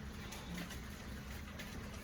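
Rain and small hail falling outside, a faint steady patter with scattered light ticks of stones striking.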